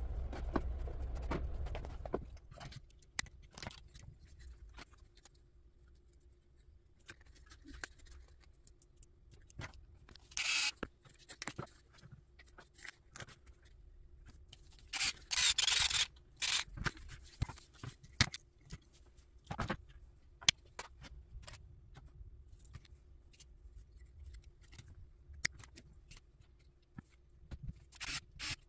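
Scattered clicks, taps and scrapes of small plastic and metal RC car parts and hand tools being handled on a workbench, with two short louder scratchy bursts about ten and fifteen seconds in.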